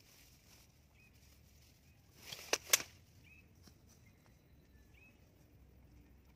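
A short rising whoosh about two and a half seconds in, ending in two sharp clicks close together. Faint short chirps of small birds come now and then.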